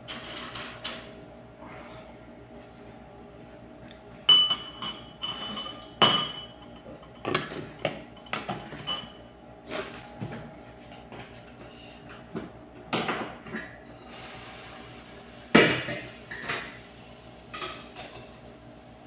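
Dishes and kitchenware clattering as they are handled and put away: irregular knocks and ringing clinks of crockery and metal, loudest about four and six seconds in and again later, over a steady low hum.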